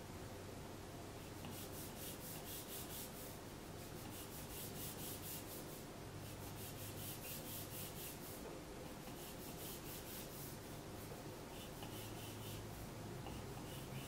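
Stylus tip scratching across a tablet's glass screen in quick, repeated line strokes. The strokes come in several runs of one to two seconds each, with short pauses between them.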